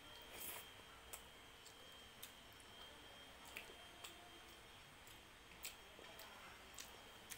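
Quiet eating by hand: faint chewing, with a few scattered soft clicks as rice and dal are picked up, mixed and eaten with the fingers.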